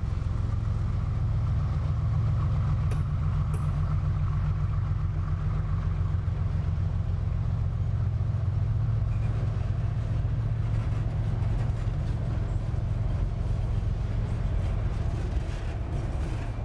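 Freight train boxcars rolling past, their steel wheels on the rails making a steady low rumble with a fast regular pulsing, and two brief sharp clicks about three seconds in.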